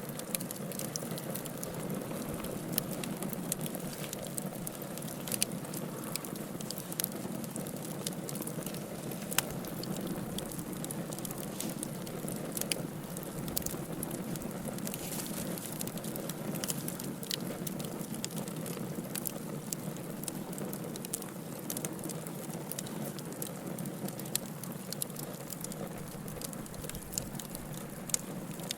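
Wood fire burning in a fireplace, with a steady low rush under frequent irregular crackles and sharp pops.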